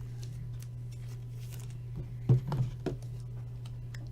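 A steady low hum, with a short cluster of soft clicks and rubbing about two and a half seconds in, from items being handled on a desk.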